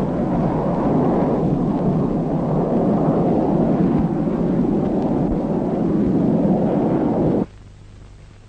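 Jet aircraft engines running with a steady low rumble, then cutting off suddenly about seven and a half seconds in, leaving only a faint low hum.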